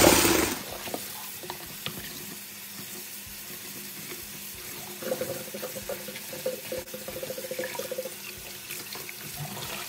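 Kitchen tap running into a plastic salad-spinner basket of fresh herbs in a stainless steel sink, a steady splashing stream with small splashes and rustles as a hand stirs the leaves under the water.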